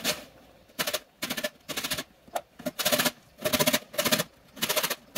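Lemon rubbed up and down the fine teeth of a stainless steel box grater to take off the zest: a series of short rasping strokes, about two to three a second, each with a fine rapid stutter.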